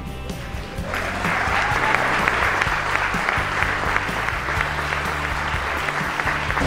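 Audience applauding, starting about a second in and holding steady, over background music.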